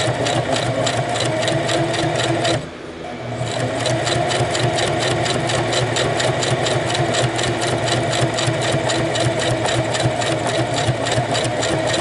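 Singer 4423 sewing machine running at a slow, even speed, stitching through Velcro and a patch: a motor hum under a steady rapid rhythm of needle strokes. About two and a half seconds in it stops for a moment, then starts again at the same pace.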